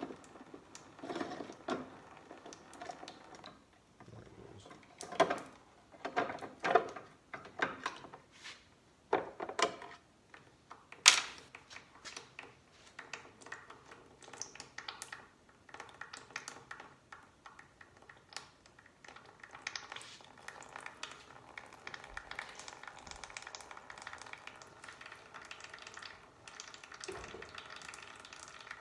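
Metal clinks and knocks of wrench and bolts for the first dozen seconds, the sharpest about eleven seconds in. Then a steady trickle of chaincase oil draining from the loosened cover.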